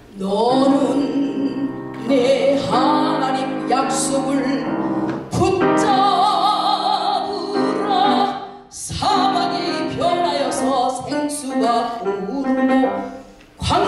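A woman singing a sacred song in a classical style with vibrato, accompanied by piano, in phrases with short breaks about 5 and 9 seconds in.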